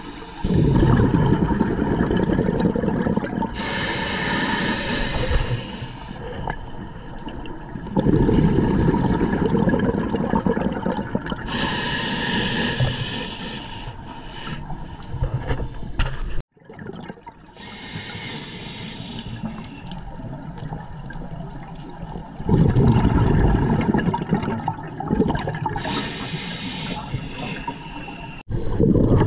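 A scuba diver breathing through a regulator underwater: a low rush of exhaled bubbles lasting a few seconds, then a shorter hiss of inhaled air, repeating about three times. The sound drops out briefly about halfway through.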